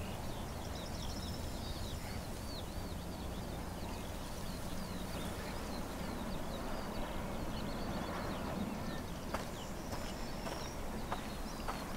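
Outdoor field ambience: a steady soft hiss with small birds chirping on and off, and a couple of faint clicks near the end.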